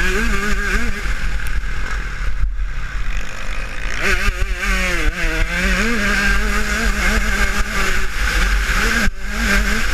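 Husqvarna TC125's 125cc single-cylinder two-stroke motocross engine revving hard under load as the bike is ridden flat out, its pitch rising and falling with throttle and gear changes. The throttle is shut briefly about two and a half seconds in and again near the end, with wind buffeting the helmet camera throughout.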